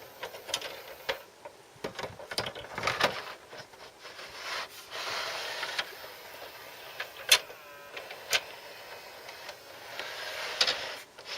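RCA SKT-400 CED videodisc player running noisily: an uneven mechanical whirr and rattle broken by many sharp clicks and knocks, two of them standing out about seven and eight seconds in. The owner is unsure whether this much noise is normal for the player.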